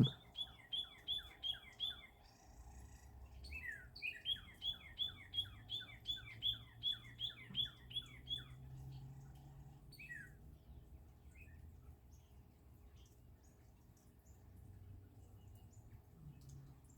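Northern cardinal singing: quick runs of repeated down-slurred whistles, about four a second. A short run opens, a longer one follows about four seconds in, then a couple of single notes near ten seconds in before the song stops.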